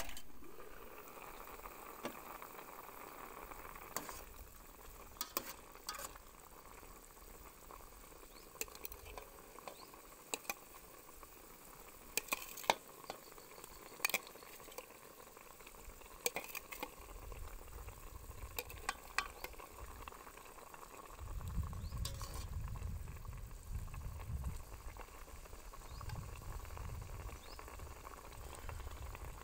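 A pot of pork and winter melon soup boiling, bubbling steadily, with scattered sharp clinks of a metal ladle against the aluminium pot and plate as pork meatballs are dropped in. A low rumble joins in about two-thirds of the way through.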